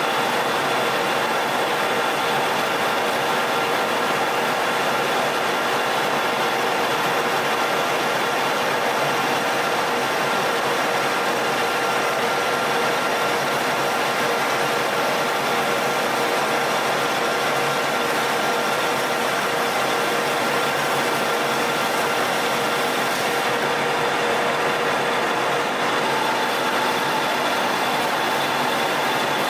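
Manual metal lathe running under load, a carbide insert turning a 4140 steel shaft: a steady mechanical whir with several constant tones from the spindle drive over the cutting noise.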